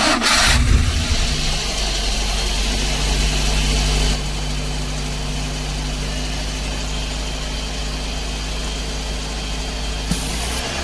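Daihatsu Dabbab's petrol engine cranked and catching at once, then running at a fast idle that steps down a little about four seconds in. The idle is still somewhat high, which the mechanic puts down to the electronic throttle body's throttle plate.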